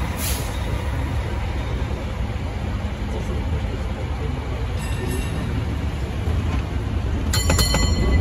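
Steady low rumble on board the open 1896 Hammond streetcar #578, with a brief hiss at the start. Near the end the streetcar's bell is struck several times in quick succession, ringing out.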